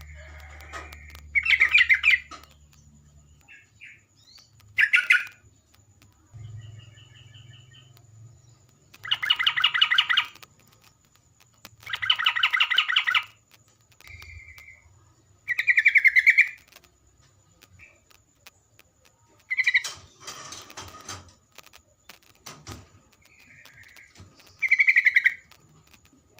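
Bulbul (terocok) song: short bursts of quick, bubbling, chattering notes, repeated every few seconds with pauses in between.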